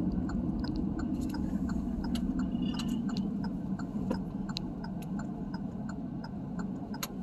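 A vehicle's turn-signal indicator ticking steadily, about three clicks a second, over the low hum of road and engine noise inside the cabin as the vehicle makes a turn.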